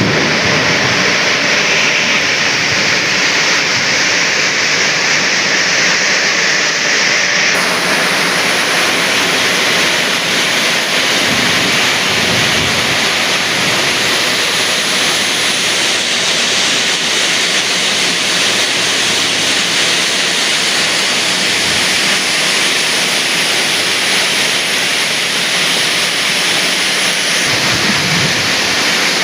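Steady rushing noise of a car driving in the rain: road, wind and rain noise, shifting slightly in tone about a quarter of the way in.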